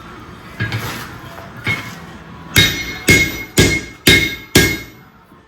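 Blacksmith's hammer striking steel on an anvil: a couple of lighter knocks, then five sharp, ringing blows about two a second.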